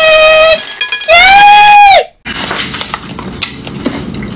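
A loud, high-pitched, drawn-out cry, held twice, the second ending suddenly about two seconds in. After it comes a quieter rattle of small hard candies pouring and clattering onto a cake and plate.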